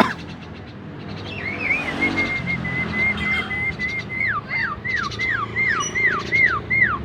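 Javan myna whistling: a wavering run of short notes held near one pitch, then, from about four seconds in, a regular string of whistles, each sliding down, a bit over two a second.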